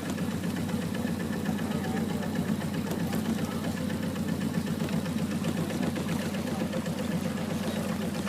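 Boat engine running steadily, with a fast, even chugging pulse.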